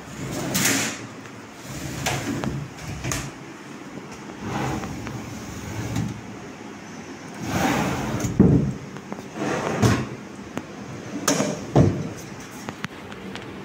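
Wooden built-in wardrobe doors and drawers being opened and shut by hand, giving a series of about ten sliding rubs and knocks, the sharpest near the end.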